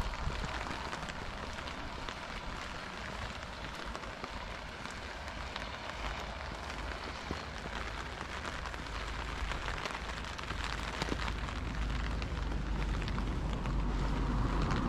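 Steady rain pattering, with many small drop ticks. In the last few seconds a car's wet tyre hiss grows louder as it approaches on the wet road.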